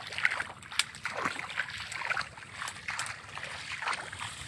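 Irregular rustling and crackling of leafy shrub branches being grabbed and pulled aside, with splashy steps on wet, muddy ground.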